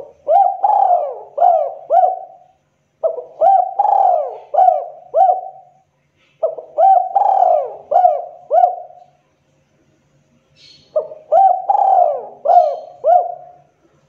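Spotted dove (tekukur) singing its sharp breeding-condition cooing song: four phrases of four or five rolling coos each, with short pauses between, the last after a slightly longer pause.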